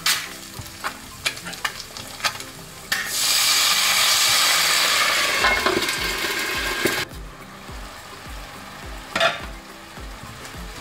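Two eggs frying in oil in a frying pan, crackling and popping. About three seconds in, a loud steady hiss starts, as water hits the hot pan to steam the eggs; it cuts off about seven seconds in, and quieter spitting and bubbling follow.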